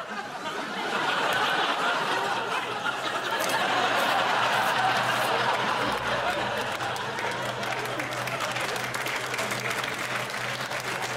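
Studio audience laughing and clapping, swelling about a second in and carrying on steadily.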